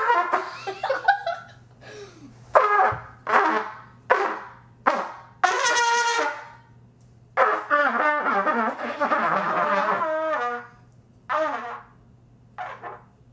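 Trumpet blown by beginners who cannot play it: a string of short, wavering, out-of-tune blasts with a longer held note about six seconds in, then a long wobbly stretch whose pitch sags and slides.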